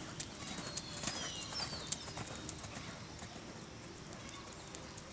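Hoofbeats of a Westphalian/Thoroughbred gelding cantering on sand-and-gravel arena footing, an uneven run of soft thuds and sharp clicks that are busiest in the first two seconds and then fade.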